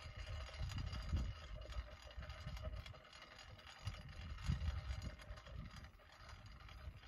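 Wind rumbling on the microphone outdoors, rising and falling in gusts, with a faint steady high hum behind it.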